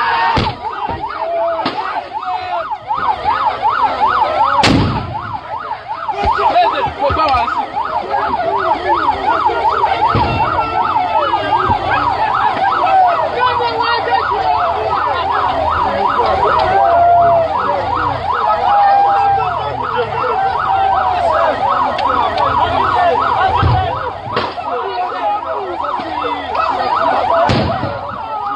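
Siren in a fast yelp, its pitch sweeping up and down several times a second, with a few loud knocks scattered through it.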